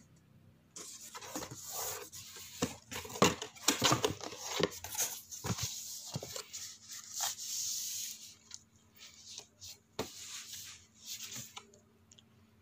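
Cardboard boxes and packing material being handled: rustling and scraping with scattered knocks and taps, starting suddenly about a second in and dying away near the end.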